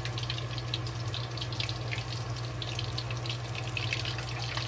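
Lion's head beef meatballs frying in hot oil in a wok: a steady sizzle full of small crackles and pops, over a low steady hum.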